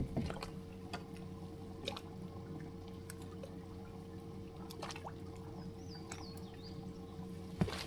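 Water trickling and splashing over a steady low hum with a thin steady tone, with scattered light clicks and knocks.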